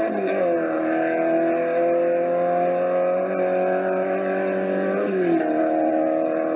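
Sprint motorcycle engine under full acceleration down a quarter-mile strip. Its note drops abruptly with a gear change at the start and again about five seconds in, then climbs slowly through each gear.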